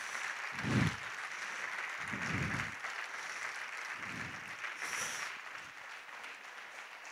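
Audience applauding steadily, with a few low voices among the clapping, easing off near the end.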